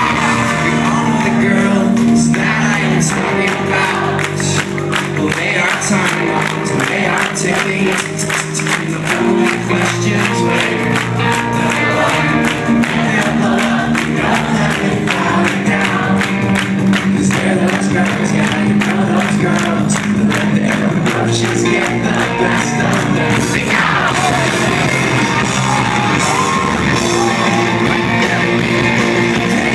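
Live rock band playing loud and steady: drums, electric guitar and keyboard with a singer's voice, recorded from within the crowd in a concert hall.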